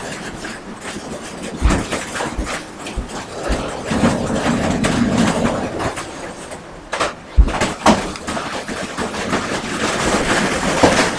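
Rain and hail pelting down: a steady rushing hiss with irregular sharp knocks of hailstones striking hard surfaces.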